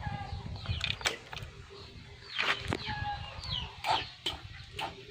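Chickens clucking and calling, with several sharp clicks and knocks, the loudest about 1, 2.5 and 4 seconds in.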